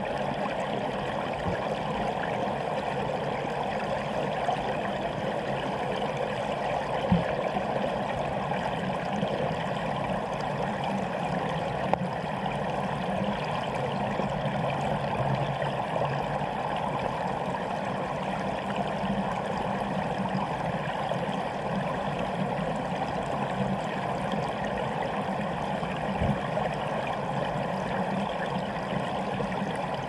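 Spring-fed river water flowing past a camera submerged in the current, a steady, muffled rushing. A few brief low knocks break through, the clearest about a quarter of the way in and another near the end.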